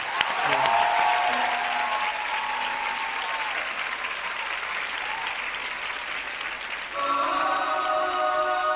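Studio audience applauding, with a few sustained cheering voices in the first few seconds. About seven seconds in, a sustained chord begins as the song's opening music starts.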